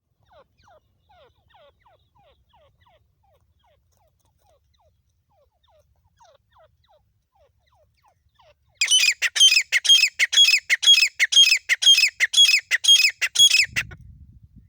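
Grey francolin (desi teetar) calling, a female's call used as a hunting lure. Faint, falling notes about twice a second give way, about nine seconds in, to a loud, shrill string of rapid repeated calls lasting about five seconds, and a short low rumble follows near the end.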